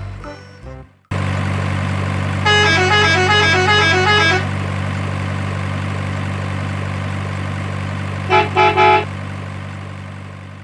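Background music fades out, then a truck engine sound effect idles with a steady low hum. About three seconds in, a multi-tone musical horn plays a quick tune. Near the end, three short horn toots sound, and then the engine hum fades away.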